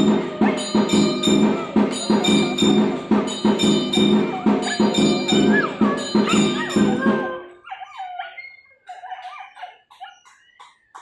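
Aarti devotional music with ringing bells and steady percussion, with a dog howling along in wavering rising and falling pitches. The music stops suddenly about seven and a half seconds in, leaving a few quieter wavering cries and soft taps.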